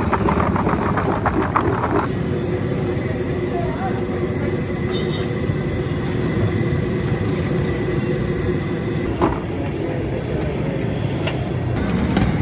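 Busy street ambience: a steady rumble of traffic with voices in the background. A dense crackling of handling noise fills the first two seconds.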